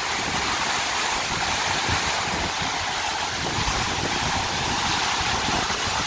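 A 50-metre waterfall crashing down a rock face and onto the rocks at its foot, heard close up: a steady, even rush of water.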